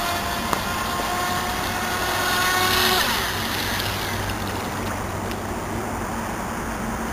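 Brushless electric motor of a radio-controlled speedboat whining steadily at speed; about three seconds in the whine falls away in pitch as the throttle comes off, leaving a steady hiss.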